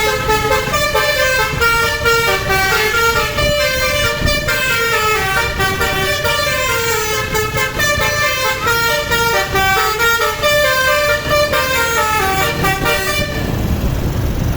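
Basuri multi-tone telolet bus horn playing a fast melody of stepped notes over the rumble of the bus. The tune stops about a second before the end.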